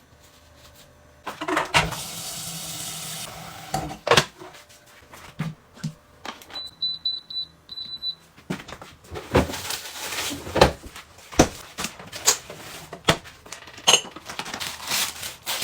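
Kitchen work: a couple of seconds of rushing noise near the start, then a run of clinks and knocks from dishes, utensils and cupboards. About halfway through, a kitchen appliance's buttons give a quick series of high electronic beeps.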